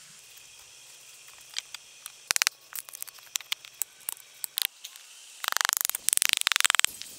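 Sharp knocks of a hand tool striking wood, single and in pairs, then a fast rattling run of strokes on wood about two seconds long near the end.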